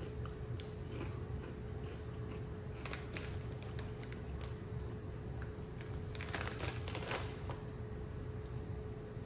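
Irregular soft crackles of a crinkled Ruffles potato chip bag being handled and a chip being chewed, with a denser burst of bag crinkling about six to seven and a half seconds in, over a faint steady hum.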